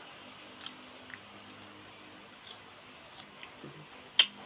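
A person chewing mango close to the microphone, with faint mouth clicks and one sharp click near the end.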